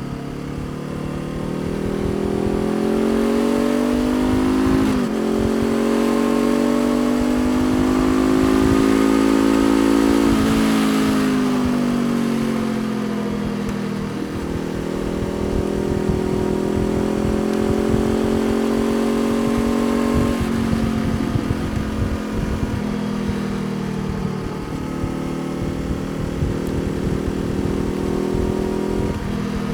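Honda CBR500R's parallel-twin engine riding through the gears: the pitch climbs, drops at a gear change about five seconds in, climbs again to about ten seconds in, then falls as the throttle eases off. It runs steadily for a while, with further shifts near twenty and twenty-five seconds in.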